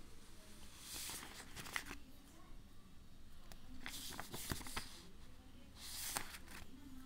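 Writing on paper: a pencil scratching out short strokes in several bursts, about a second in, around four to five seconds in and again around six seconds in, with light paper rustle and small clicks.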